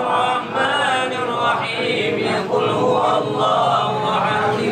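A group of men chanting tahlil prayers together, many male voices reciting on a drawn-out, sung melody without a break.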